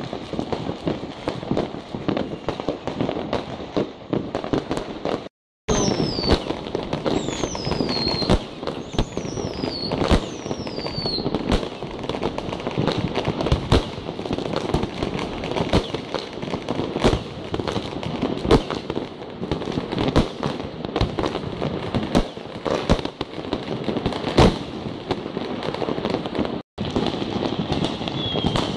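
A fireworks display: constant crackling of firecrackers under repeated sharp bangs of bursting shells. Four falling whistles come in quick succession a few seconds in, and the sound drops out for an instant twice.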